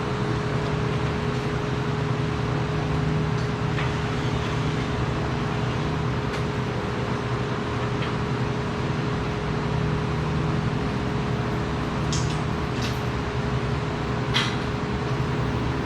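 Steady machinery hum and whir with a constant tone, and a few faint clicks, the clearest near the end.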